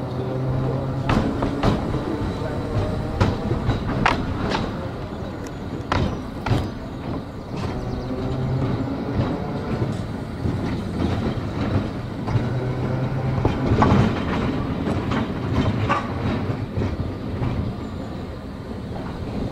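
Narrow-gauge electric tramcar running along the track: steady rumble with a low motor hum that rises and fades several times, and irregular sharp clicks of the wheels over rail joints and points.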